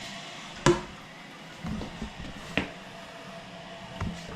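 A few sharp knocks or clicks, the loudest about a second in and two fainter ones later, over a faint steady hiss of a newly installed toilet's tank filling with water.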